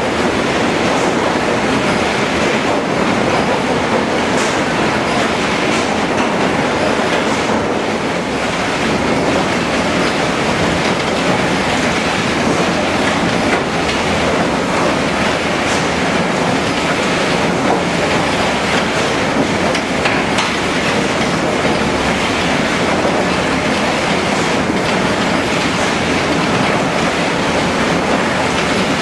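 HewSaw R200 chipper-canter sawing line running: a loud, steady, dense mechanical din of chipping and sawing heads and log conveyors, with a few faint knocks.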